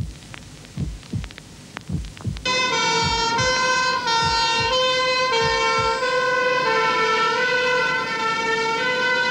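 Heartbeat thumps in pairs. About two and a half seconds in, an ambulance's two-tone siren starts, loud and steady, switching back and forth between two pitches, with the heartbeat still under it for a few seconds.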